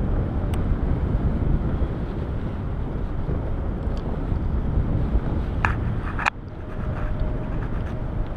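Steady low rushing of wind over the microphone during paraglider flight, with a few short clicks. The noise drops sharply for a moment about six seconds in, after which a faint steady tone comes in.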